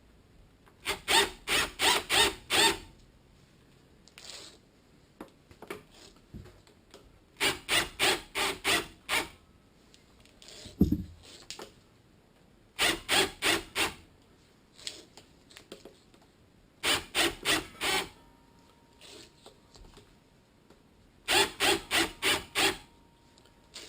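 Sheathed electrical cable being run through a wire-stripping tool, the blade slicing the outer jacket, in five bursts of quick scraping strokes, about two or three a second.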